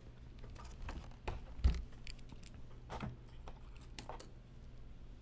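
A few short clicks and taps from hands and tools working on an opened laptop, the loudest about a second and a half in, over a faint steady low hum.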